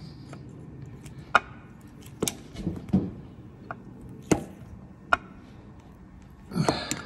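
Hand ratchet on a home-made crow's-foot spanner tightening a nylon lock nut on a gearbox stud: separate sharp metallic clicks and knocks, roughly one a second, with a quick cluster near the end.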